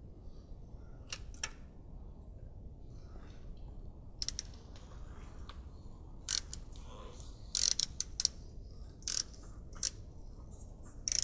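Hand ratchet turning a 4 mm Allen bit, clicking in several short bursts as the small bolts of a crankshaft position sensor are snugged up. The loudest clicks come in a cluster in the middle and again just before the end.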